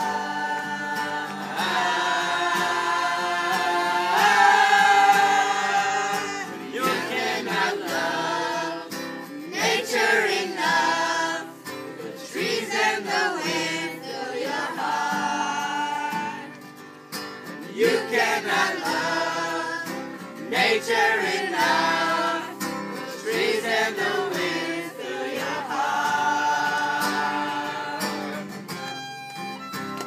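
Group of boys singing a song together, accompanied by an acoustic guitar.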